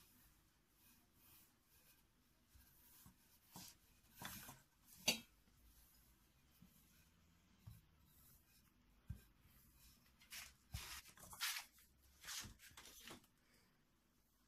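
Faint rubbing and rolling of a wooden rolling pin over a sheet of yeast dough on an oilcloth-covered table, with a few soft knocks and clicks, the sharpest about five seconds in.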